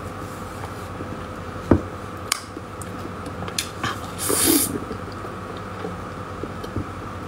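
Close-up mouth sounds of eating a soft cream-filled crepe: a few small wet clicks, and a short breathy burst about four seconds in as she bites. A steady low hum sits underneath.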